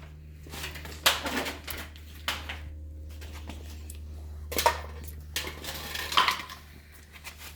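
A few scattered light metallic clinks and knocks from handling around the motorcycle, over a steady low hum.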